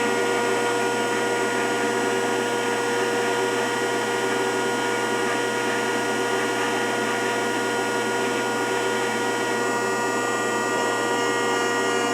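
Rockford 36-inch hydraulic open-side planer running, its hydraulic system giving a steady whine of many tones as the hydraulic valve is eased open at a low setting, on its first run after thirty years of storage. The tones change slightly about ten seconds in.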